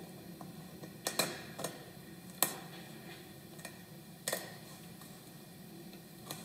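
About six light, sharp clicks and knocks at uneven intervals over a steady low room hum, the loudest about two and a half seconds in.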